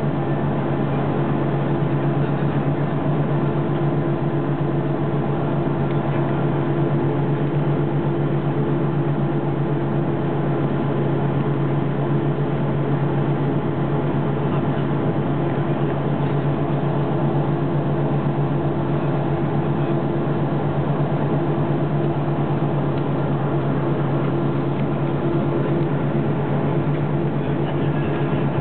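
Jet airliner cabin noise from a seat over the wing: the engines run at a steady pitch, giving a constant low drone over an even rush.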